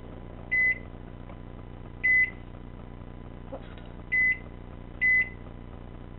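Microwave oven keypad beeping four times as the cooking time is keyed in: short, high, single-tone beeps at uneven intervals.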